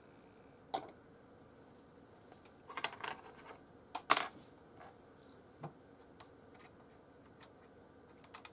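A plastic screw cap being fitted back onto a small glass bottle and the bottle handled on a desk: a light click, a run of small clinks and rattles, then two sharper clinks about four seconds in, with a few faint ticks after.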